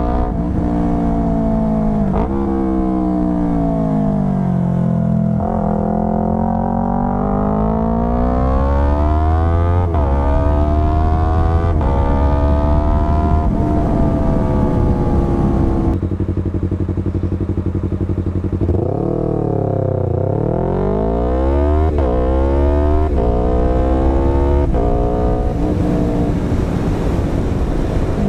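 Yamaha R3 parallel-twin engine through a full Akrapovic exhaust, ridden hard. The revs climb under acceleration, drop sharply at gear changes and fall away when the throttle is rolled off.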